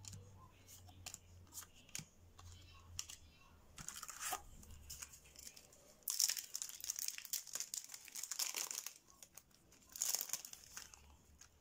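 Light clicks of cards being handled, then a booster pack's foil wrapper crinkling and tearing as it is opened. The crinkling is loudest from about six to nine seconds in, with a further burst near the end.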